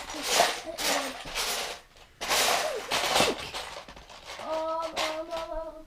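Loose Lego bricks clattering in a plastic bin as a hand digs through them, in two long bursts. Near the end, a child hums a steady note.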